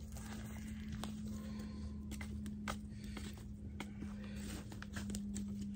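Footsteps in dry leaf litter and a stick poking at a small campfire of coals, with scattered faint crackles and clicks over a steady low hum.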